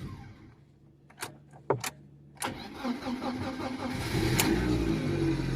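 Lada Kalina engine being jump-started: a couple of sharp clicks, then the starter cranks for about a second and a half before the engine catches about four seconds in and settles into a steady idle. It is running on a reworked ECU reflashed to 2114 firmware, with no faults showing.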